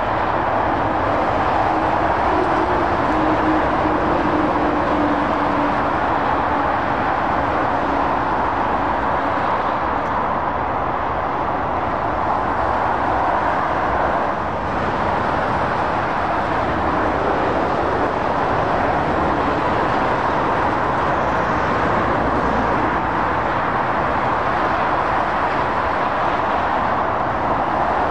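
Steady motorway traffic: lorries and cars passing at speed, their tyre noise and engines blending into one continuous rush of sound. A faint low hum, falling slightly in pitch, shows in the first few seconds.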